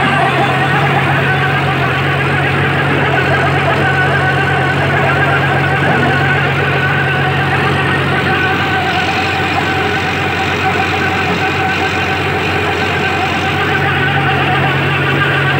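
Tractor engine running steadily under load, driving a trencher through a shaft as it digs soil. A low hum weakens about nine seconds in and comes back near the end.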